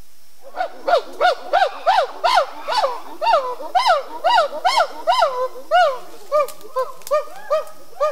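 Chimpanzee hooting: a run of about twenty loud calls, each rising and falling in pitch, two to three a second, growing softer and more spaced out near the end.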